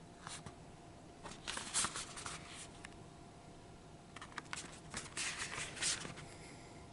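Rustling and clicking of a DVD case being handled close to the microphone, in two short spells: one about a second and a half in, and another from about four to six seconds in.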